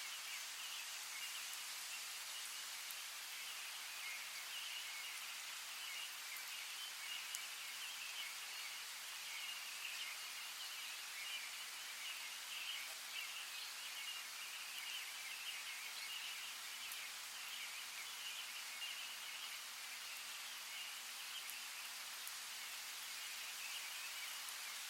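Steady outdoor nature ambience: an unbroken, even hiss of water or rain with a dense, shimmering layer high in pitch and a few faint ticks scattered through it.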